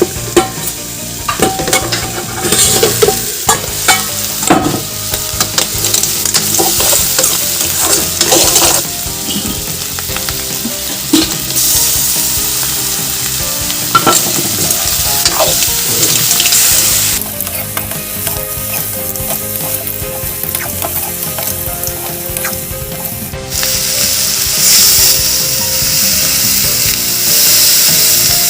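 Food sizzling as it fries in hot oil in a pan, stirred with a spatula that scrapes and knocks against the pan many times in the first half. Later the stirring stops and the sizzle runs steadily, getting louder about 24 seconds in.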